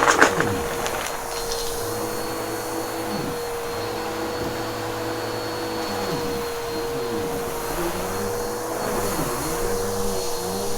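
Bissell PowerForce Helix upright vacuum running steadily, its motor holding one even whine, with a short burst of crackling right at the start as debris is sucked up.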